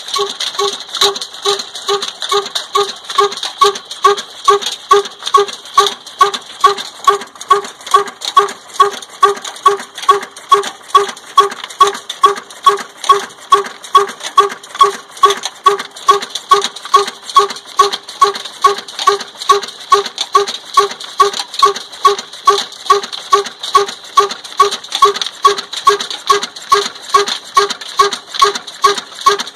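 Old black single-cylinder 'desi' stationary diesel engine with a heavy flywheel running steadily, beating at about two firing beats a second, each beat a sharp ringing knock.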